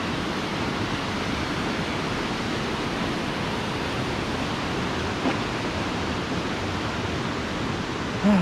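Steady rushing of a mountain stream and small waterfall, an even noise with no breaks.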